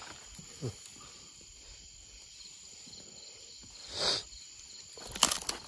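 Night insects chirring steadily in the forest, with a brief rustle about four seconds in and a few sharp knocks near the end.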